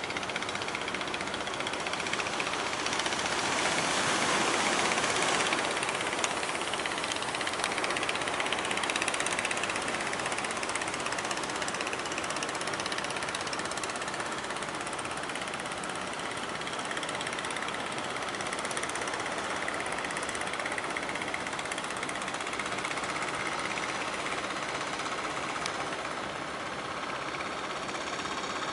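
Fishing boat diesel engines running with a rapid knocking beat, under a steady noisy rush of sea and wind that swells a few seconds in.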